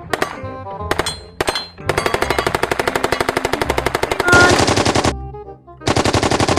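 Submachine gun firing: a few single shots, then a long fully automatic burst of rapid, evenly spaced shots, and after a short pause a second automatic burst near the end.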